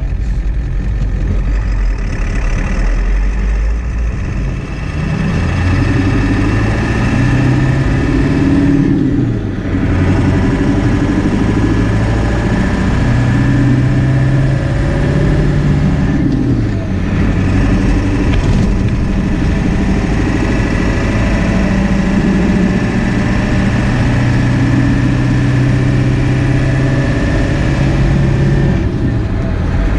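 1997 Ford F-350 pickup's engine running while the truck is driven. Its pitch climbs as it accelerates and falls back at each gear change, several times over.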